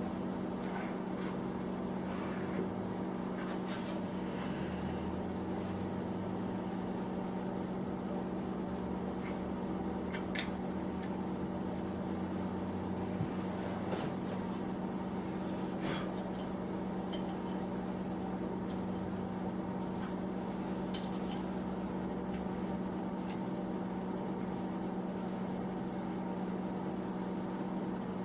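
Steady electric hum of a small space heater running, with a few faint clicks and taps from handling metal parts.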